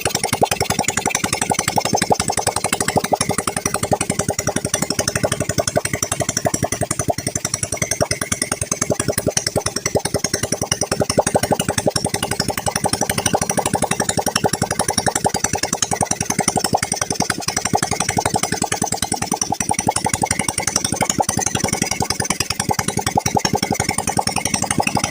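Motorcycle engine running steadily after a carburettor clean and restoration, with a rapid, even beat of firing pulses; the engine runs well.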